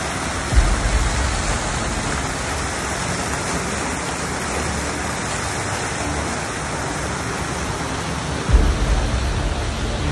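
Fountain jets splashing into a shallow pool, a steady rushing of falling water. Two brief low rumbles break in, about half a second in and again after eight seconds.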